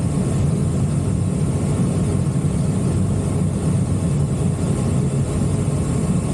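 Steady rushing airflow noise in the cockpit of an ASK 21 two-seat glider in flight, a low even rumble that does not change.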